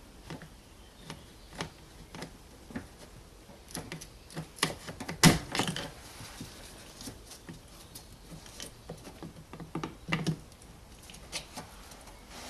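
Scattered small clicks and knocks of plastic electrical connectors being worked off the screen wash pump motors on the washer tank, with one sharper, louder knock about five seconds in.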